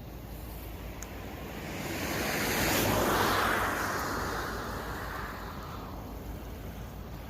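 A vehicle passing by: a rush of noise that swells to a peak about three seconds in and then fades away, with no horn sounding.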